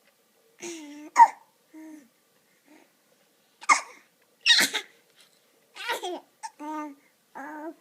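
A baby of about six months hiccuping and coughing between short bursts of laughter and babbling: a few sharp catches of breath broken up by brief voiced laughs and coos.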